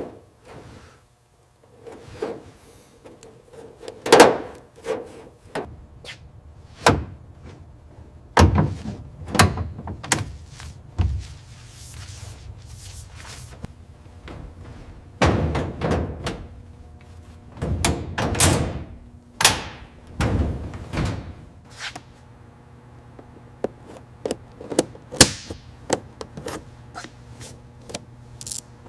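A series of knocks and heavy thuds at irregular intervals, the heaviest clustered about a third of the way in and again past the middle, over a faint steady hum.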